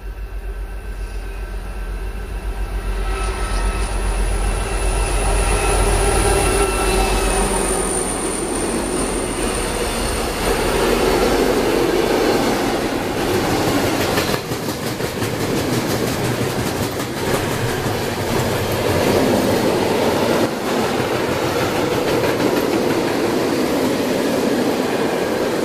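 Freight train approaching and passing close by. Over the first several seconds the locomotive's low rumble and steady whine grow louder. Then a long string of goods wagons (sliding-wall vans and gas tank wagons) rumbles past with a continuous rapid clatter of wheels on the rails.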